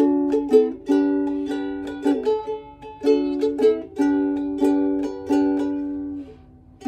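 Ukulele strumming chords, with no singing. The strums come in a loose rhythm, and about five seconds in a chord is left to ring and fade nearly to quiet before the next strum.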